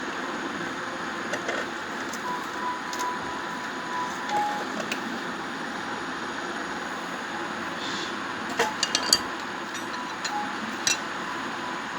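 Hero Honda Splendor's single-cylinder four-stroke engine running steadily, with a faint on-and-off whine and a few sharp clicks, a cluster a little after the middle and one more near the end. The abnormal noise is put down to the magneto coil.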